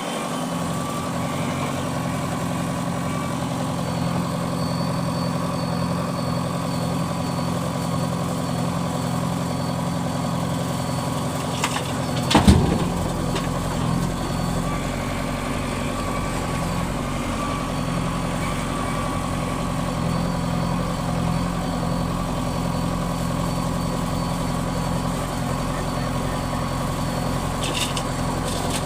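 Heavy diesel engine of construction machinery running steadily. A single loud thump comes about halfway through.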